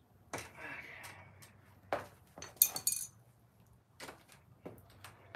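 Sharp metal clicks and clinks of a hex key tool worked against the e-bike's handlebar stem, with a brighter ringing clink a little past the middle.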